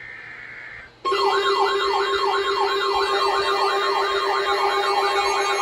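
Electronic siren-style alert that starts suddenly about a second in: a fast warbling yelp, sweeping up and down two to three times a second over a steady low tone. Just before it, a short buzzing tone lasts about a second.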